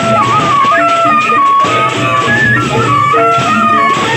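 Sasak gendang beleq ensemble playing on the march: a suling flute melody stepping between held notes over steady drumming and clashing cymbals.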